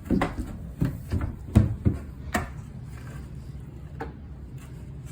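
A run of light knocks and thumps, about six in the first two and a half seconds and one more near four seconds, over a steady low hum.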